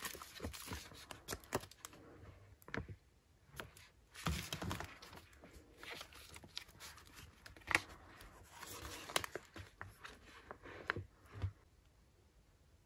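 A clear plastic sticker packet crinkling and rustling as hands handle it and pull sheets from it, in irregular bursts with sharp little clicks, falling quiet near the end.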